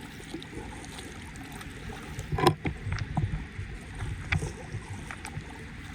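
A run of knocks and bumps over a low rumble, the sharpest about two and a half seconds in.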